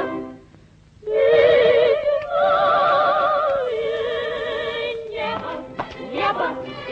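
Operetta singing with orchestra: after a brief pause, a voice holds a long note with wide vibrato, moving to a new pitch twice.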